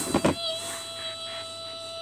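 A few knocks and rustles as a hand handles the recording phone close to its microphone, followed by a steady high-pitched note held for about a second and a half.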